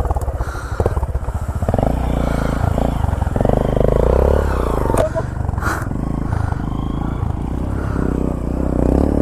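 Motorcycle engine running under way, its pulsing exhaust note steady, with the revs rising near the end.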